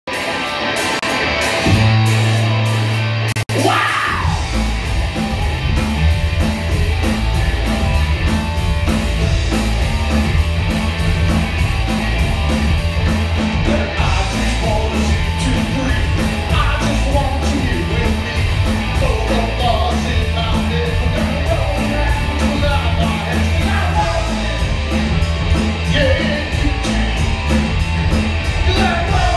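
Live rock band of electric guitar, bass guitar and drums. A low note is held briefly, the sound cuts out for an instant, and about four seconds in the full band comes in with a steady driving beat, a male voice singing over it.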